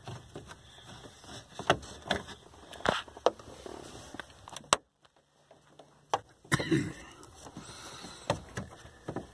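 Screwdriver backing out plastic dash trim screws: irregular small clicks, taps and scrapes of the bit in the screw heads and against the plastic trim, with a brief silent gap about halfway through.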